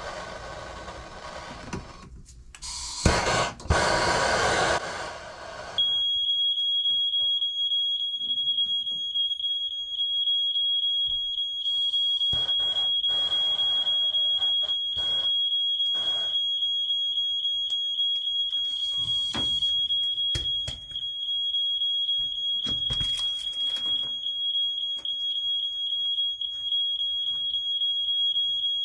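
A loud, harsh rasping noise for the first few seconds, then a steady high-pitched electronic alarm tone comes on about six seconds in and sounds without a break, with scattered knocks and clatter beneath it.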